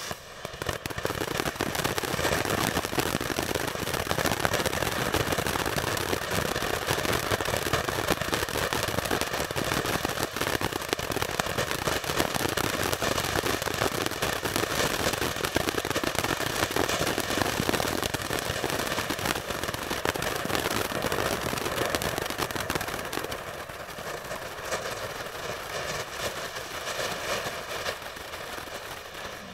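Shogun 'Tailgate Party' 500-gram fireworks fountain spraying, a dense steady hiss and crackle. It eases somewhat about 23 seconds in.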